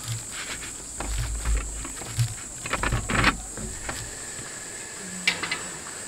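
Knocks and clatters of a metal baking tray of sweet potatoes and chestnuts being handled, busiest in the first half, then a few sharp clinks near the end as it goes into a camping box oven. A steady high-pitched whine runs underneath.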